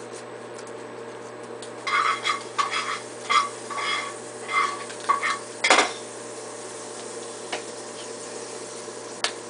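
Baby bottle and its parts being scrubbed and handled in a sink: a run of short clinks and knocks for about four seconds, ending in one sharper knock near six seconds.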